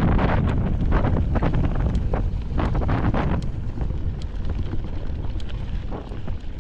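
Wind buffeting the microphone of a camera on a mountain bike going downhill, with scattered knocks and rattles from the bike on rough ground. The wind rumble eases after about three and a half seconds.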